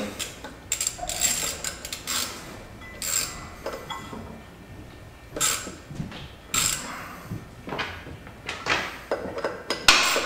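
Hand tools and metal parts clicking and scraping irregularly at a Yamaha Viking's CVT clutch as it is opened up with 10 mm bolts to make room for the drive belt.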